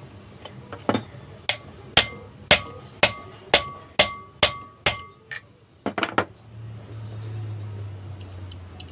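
Hammer tapping on metal, about two evenly spaced strikes a second, each with a short ringing tone, as in tapping a fan bearing into place. About six seconds in come a few quicker knocks, then a low hum.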